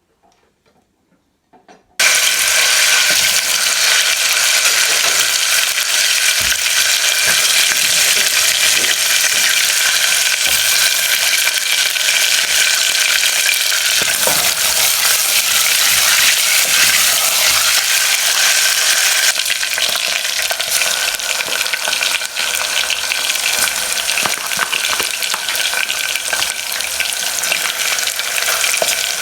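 Food frying in hot oil: a loud, steady sizzle with small crackles that starts abruptly about two seconds in.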